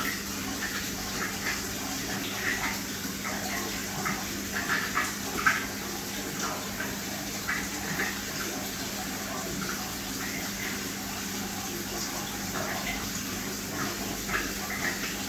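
Aquarium water trickling and splashing in small, irregular spurts over a steady low hum.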